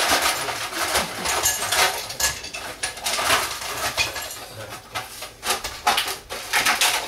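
Ice cubes clattering and knocking as they are shaken and tapped out of a plastic container into a glass bowl: irregular hard knocks throughout.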